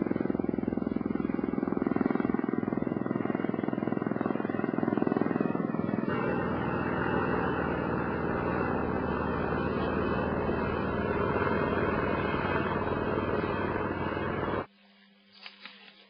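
Helicopter running at close range, a loud steady rotor and engine noise that shifts in tone about six seconds in. It cuts off abruptly near the end, leaving a faint low hum.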